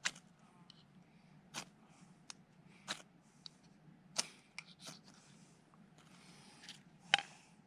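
A few sharp, irregular clicks and small snaps over faint background hiss.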